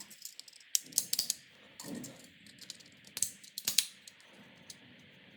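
A few light, sharp clicks and taps, in a cluster about a second in and another between three and four seconds in.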